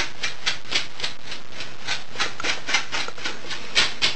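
Electric hair clippers running and cutting through hair on a head, with short rasping strokes repeating about four times a second over the motor's hum.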